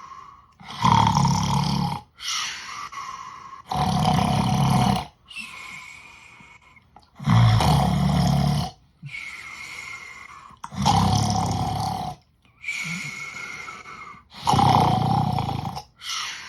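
A sleeping pet snoring in a steady rhythm: five loud rasping snores, about one every three and a half seconds. Each is followed by a quieter out-breath, several of which carry a faint whistle.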